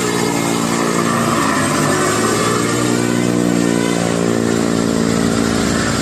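Large bus's diesel engine revving loudly and holding high revs, right after its telolet horn melody.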